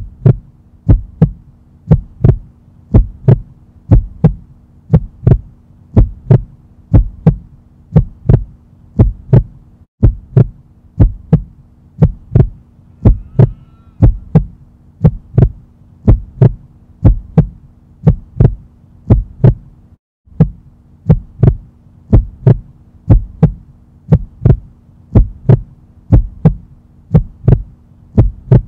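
Heartbeat sound effect: paired lub-dub thumps about once a second over a steady low hum, with brief breaks about every ten seconds where the loop restarts.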